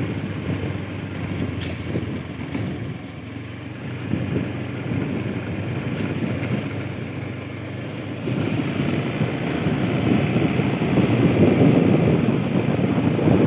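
Motorcycle engine and road noise while riding along a rough dirt track, a dense steady rumble that grows louder about eight seconds in.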